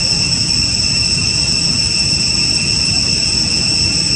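Steady chorus of insects in the trees, several high-pitched buzzing tones held without a break, over a continuous low rumbling noise.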